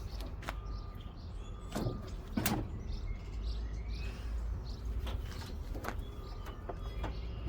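Scattered metallic knocks and clicks of hand tools working on a front-load washer's tub springs and frame, over a low steady rumble. A faint rising bird chirp comes about three seconds in.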